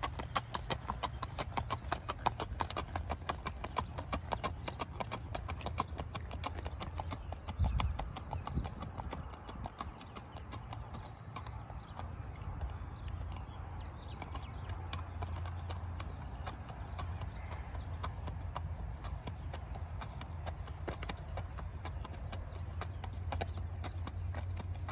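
A ridden horse's hooves clip-clopping on asphalt in a quick, even rhythm, over a low steady rumble. The hoofbeats grow fainter in the middle as the horse moves off, and louder again near the end as it comes back.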